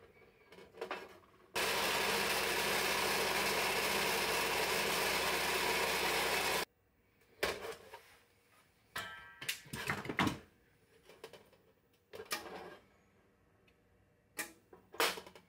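A handheld muscle vibrator (massage gun), used as a vibration table to settle pewter into the mold's fine detail, runs steadily for about five seconds and then cuts off suddenly. Scattered clicks and knocks follow as the clamps come off and the resin mold is pulled apart.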